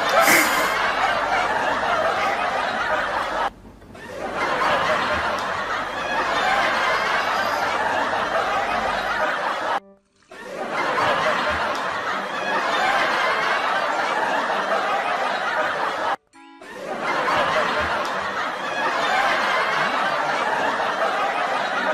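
Dubbed-in laughter, a dense crowd-like mass of snickering and chuckling, with music under it. It breaks off three times for a moment and starts again, like a repeating laugh track.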